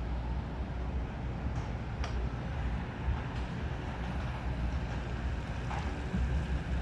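Wind rumbling on the microphone outdoors: an uneven low rumble with a faint background hiss.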